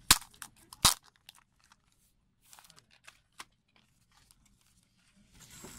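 Clear plastic wrap on a CD crackling and tearing as it is pulled open: two sharp crackles right at the start, then scattered smaller crinkles, and soft rustling near the end.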